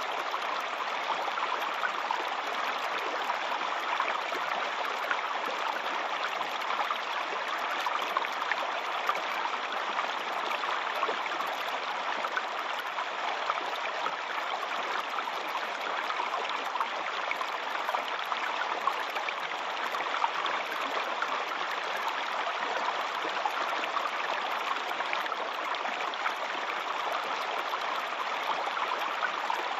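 Waterfall: an even, unbroken rush of falling water with a fine splashing texture and little deep rumble.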